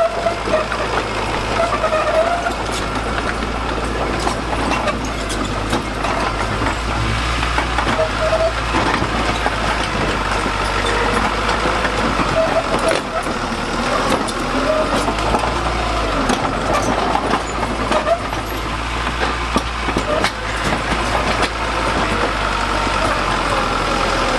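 Diesel engine of heavy construction machinery running steadily, with people's voices over it.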